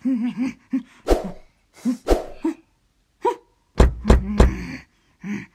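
Short nonverbal cartoon-character vocal noises, grunts and squeaky wavering sounds without words, broken by sharp knocks about one and two seconds in and a cluster of heavy low thuds about four seconds in.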